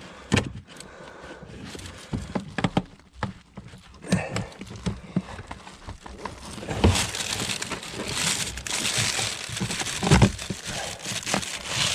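Hands working at plastic trim and a car's engine wiring harness: rustling, scraping and sharp plastic clicks and knocks as clips are pried and pulled. The rustling grows louder in the second half, with a sharp knock about ten seconds in.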